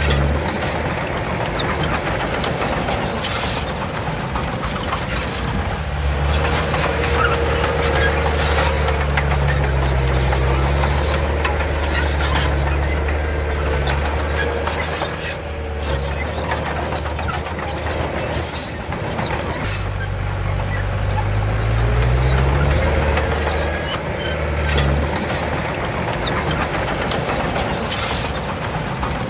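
Komatsu D31 bulldozer's diesel engine working under load, its pitch shifting as the throttle changes and rising about two-thirds of the way through, over the continuous noise of the machine at work.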